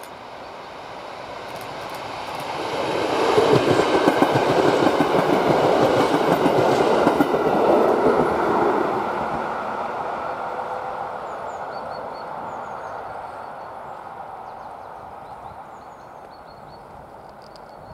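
EN57AL electric multiple unit passing by: the rumble and clatter of its wheels on the rails build up over the first few seconds, stay loudest for about six seconds as it goes past, then fade slowly away as it recedes.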